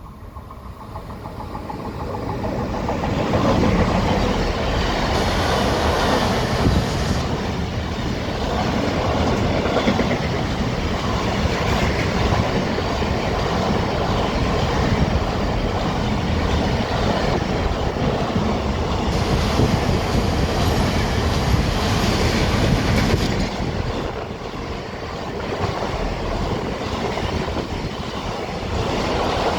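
A train passing through at speed, its wheels rumbling on the track. The noise builds over the first few seconds, stays loud for about twenty seconds, then eases a little but carries on to the end.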